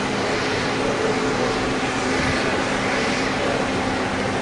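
Steady mechanical drone: a low, even hum over a broad hiss that holds unchanged throughout.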